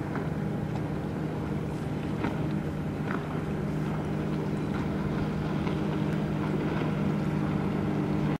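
Steady drone of a running motor, holding several low tones over a light hiss, with a few faint ticks.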